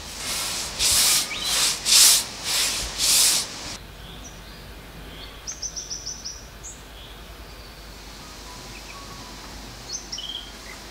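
About six rubbing strokes of a hand tool across a large white-primed painting board, one after another. Then a sudden change to quiet bush ambience, with a bird giving a quick run of high chirps and a few more chirps near the end.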